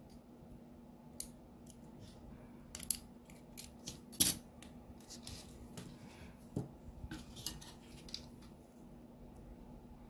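Irregular small clicks and taps of plastic and metal as a chatterbox BiT-2 intercom's circuit board and plastic housing are handled and pressed together, the loudest click a little over four seconds in, over a faint steady hum.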